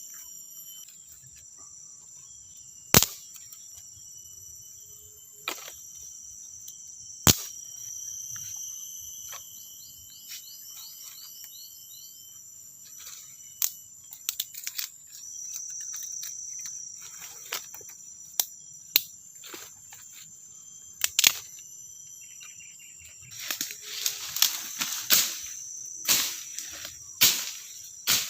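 Forest insects buzzing steadily in high, continuous tones, broken by a few single sharp knocks. Near the end comes a quick run of cracks and rustles.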